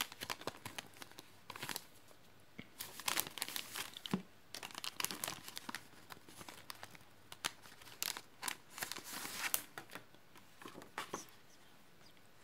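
Clear cellophane packaging crinkling and paper sheets rustling as planner stickers and inserts are taken out and handled, in short irregular bursts.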